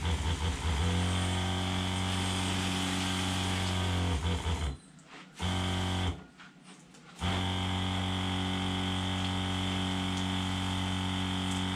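A 60 PSI 12-volt water pump runs with a steady motor hum while water sprays from a hand sprayer. It cuts out about five seconds in, runs again briefly, stops, and comes back on about seven seconds in.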